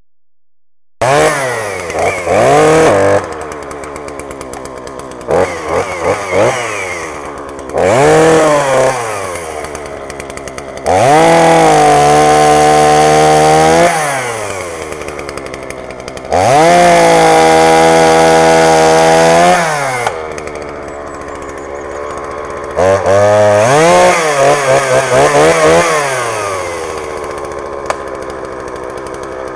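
Dolmar PS-3 chainsaw's 33 cc two-stroke engine idling and being revved. It gives a few short throttle blips, then two held high revs of about three seconds each, then a quick run of blips before settling back to idle.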